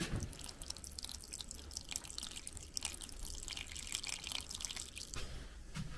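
A thin stream of tap water running and dripping into a bowl of coarsely ground acorns, faint and steady: water being added to leach the tannins out of the acorn meal.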